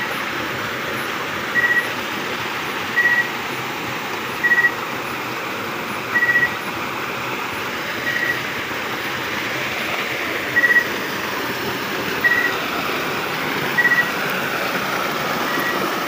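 Water rushing steadily over a concrete dam edge. A short high-pitched tone repeats through it about every second and a half.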